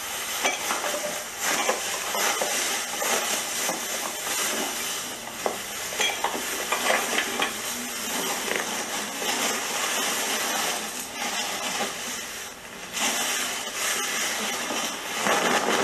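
Black plastic bin bags rustling and crinkling as clothes and belongings are stuffed into them, a dense crackle with many small clicks and knocks.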